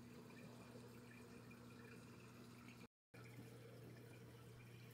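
Near silence: a faint steady hum and faint trickling water from a running reef aquarium's pumps and circulation. The sound cuts out completely for a moment about three seconds in.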